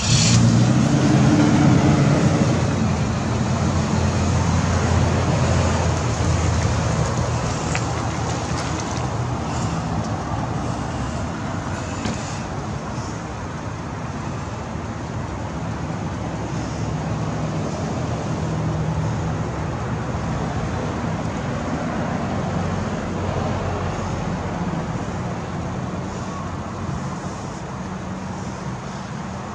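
Motorcycle engine starting up, running loudly for the first few seconds, then settling to a steadier, quieter run.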